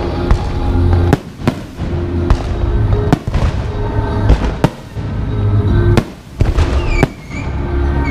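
Fireworks going off in a string of loud, sharp bangs, roughly one a second, over music.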